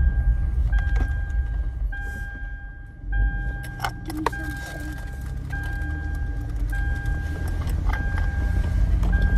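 Road noise of a moving car heard from inside the cabin, a steady low rumble. Over it a pitched beeping tone keeps switching on and off at uneven intervals, with a couple of sharp clicks about four seconds in.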